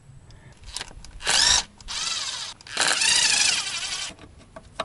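Cordless drill/driver running in two bursts, backing out screws on the Bosch P7100 injection pump: a short run about a second in, then a longer one from about three seconds in.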